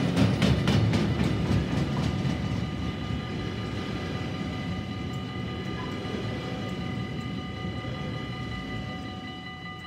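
Container freight train's wagons rolling past on the rails, wheels clicking sharply over the rail joints in the first couple of seconds. Then a steady rumble fading away as the last wagons pass.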